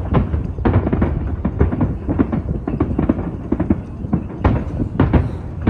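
Fireworks bursting in quick succession: a dense run of bangs and crackles with deep booms underneath.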